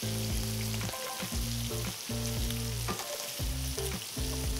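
Poori paratha deep-frying in hot oil in a wok, the oil sizzling steadily.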